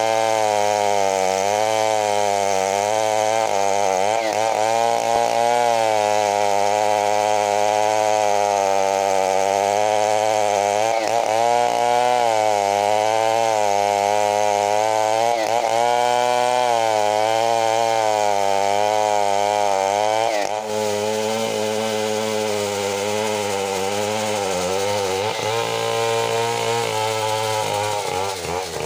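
Large two-stroke chainsaw running under load while cutting a big hardwood log into boards, its engine pitch rising and dipping again and again. It breaks off briefly about two-thirds through, then carries on a little quieter.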